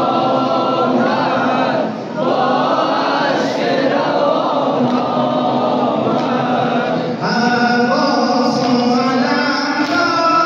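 A noha, a Shia mourning lament, sung by male voices: a group chanting together, with a single amplified lead voice coming to the fore about seven seconds in.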